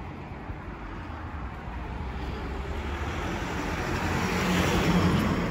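A car passing on the road, its noise growing louder over several seconds to a peak near the end and then easing off.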